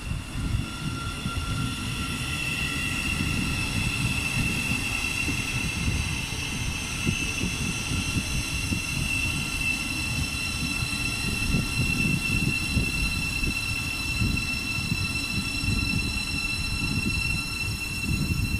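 Thameslink Class 700 electric train running along the platform, a steady high whine over the rumble of its wheels on the rails.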